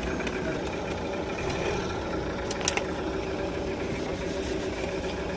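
Car engine idling steadily, with a few sharp clicks, the loudest about halfway through.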